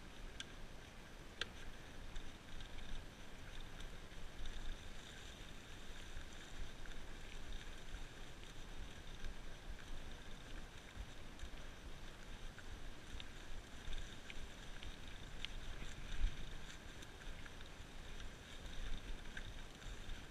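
Mountain bike rolling fast downhill over a leaf-covered dirt trail: steady tyre and trail noise with scattered rattles and clicks from the bike over bumps, and a harder knock about three quarters of the way through.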